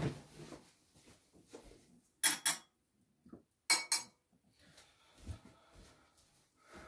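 Metal cutlery clinking and rattling in two short, ringing bursts about a second and a half apart, as a teaspoon is picked out.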